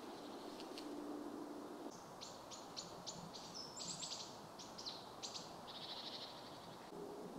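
A small songbird singing in the woods: a run of short, sharp high chirps beginning about two seconds in, ending in a quick trill, over a faint outdoor hush.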